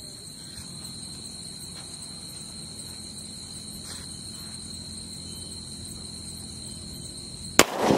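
Crickets chirping steadily while a lit fuse burns, then near the end a single loud bang as a large Tota-brand firecracker bomb explodes, with a brief echo after it.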